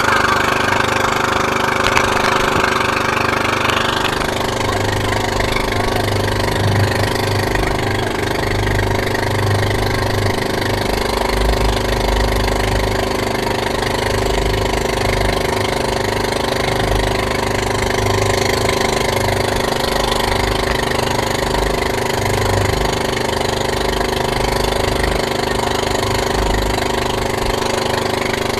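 Motorized outrigger boat's engine running steadily under way, with a rushing hiss over it that eases about four seconds in.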